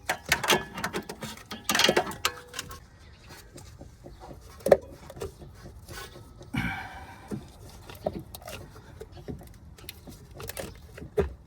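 Rubber steering-rack bellows boot being tugged and worked off the inner tie rod by hand: scattered clicks, knocks and rustling, with one sharp click a little before halfway.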